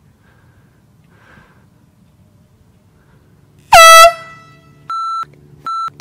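A handheld canned air horn sounds one short, very loud blast, its pitch dropping at the onset before it settles and fades. It is followed by two shorter, quieter, higher-pitched steady beeps.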